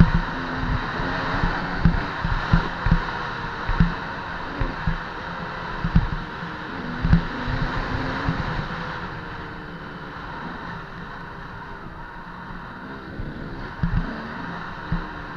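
KTM 200 EXC's single-cylinder two-stroke engine running under a rider on a rough dirt trail, its revs rising and falling, with sharp knocks as the bike bangs over bumps. It goes quieter from about nine seconds in as the throttle eases off.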